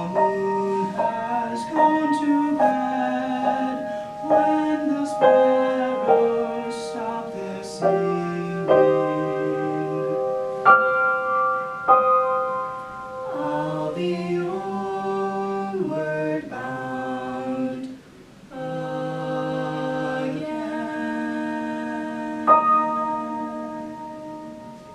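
A young woman and a young man singing a duet in two-part harmony, holding long notes, the lower voice under the higher; the last note fades away near the end.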